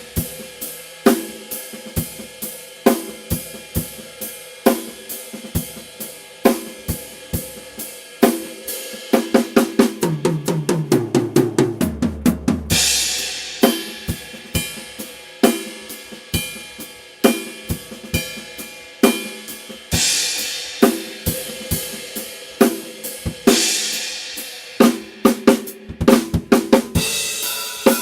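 Pearl Vision birch drum kit played in a steady groove of bass drum, snare and hi-hat. From about nine seconds in, a fill of hits steps down in pitch across the toms and lands on a crash cymbal, with more crashes near twenty and twenty-three seconds.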